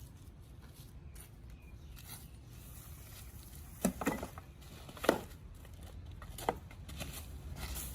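A few sharp knocks and clicks, as of small hard objects being handled or set down on a work surface, over a low steady rumble.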